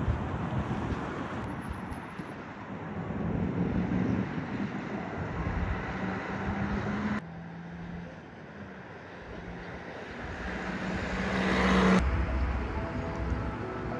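Vehicle and traffic noise with a steady low engine hum, in several short shots cut together. Near the end one vehicle grows louder up to a peak, and the sound cuts off abruptly there.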